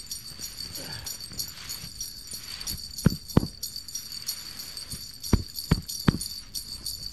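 Five dull thumps, two about three seconds in and three more a couple of seconds later, over a steady high-pitched hiss.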